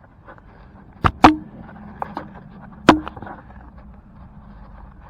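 Four sharp metallic knocks from tools being handled while stuck screws are drilled and extracted. Two come close together about a second in, the second being the loudest, and one comes near three seconds; both loud knocks leave a brief ringing tone. There is no drill running.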